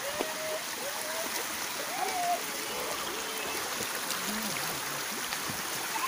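Steady rush of a running stream over rock, with faint voices in the background.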